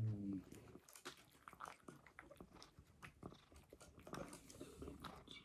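Cat eating from a bowl close to the microphone: irregular soft chewing clicks and mouth smacks. A brief low voice sounds at the very start.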